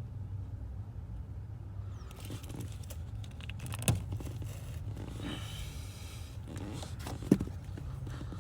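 Hand wire stripper-cutter working the insulation off a wire, scraping and rustling, with two sharp clicks, one near the middle and one near the end. A steady low hum runs underneath.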